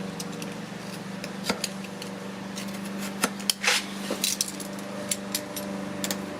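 A blade cutting and scraping away loose, moisture-swollen MDF: scattered sharp clicks and scrapes, with one longer rasping scrape about three and a half seconds in. A steady low hum runs underneath.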